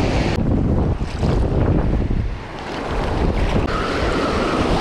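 Wind buffeting the microphone over waves breaking on the beach, easing briefly about halfway through.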